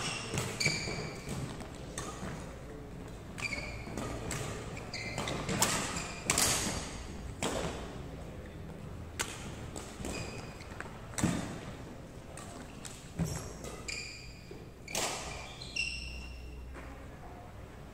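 Badminton play on a wooden sports-hall floor: sharp racket strikes on the shuttlecock at irregular intervals, mixed with short high-pitched squeaks of court shoes on the boards.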